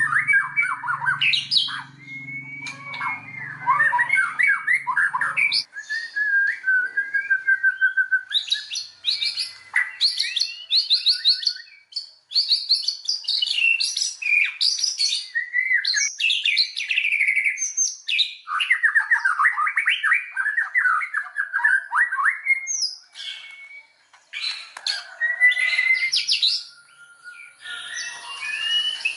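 White-rumped shama (murai batu) singing a long, varied song of rapid trills, chattering runs and clear whistles, broken by short pauses.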